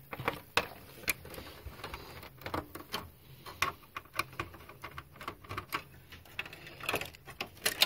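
Irregular clicks and taps of hands and a screwdriver knocking against the plastic and metal parts inside an opened DVD/VCR player.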